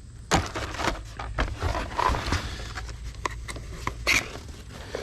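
Handling of tackle packaging in a box: rustling and scraping with scattered light knocks and clicks.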